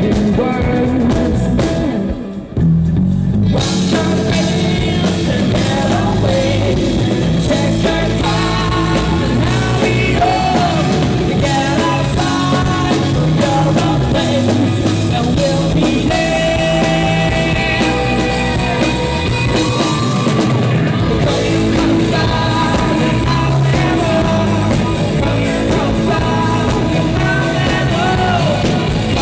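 Live rock band playing with a lead vocal: electric guitars, bass and drum kit under sung lines. The band drops out briefly about two seconds in, then comes back in full.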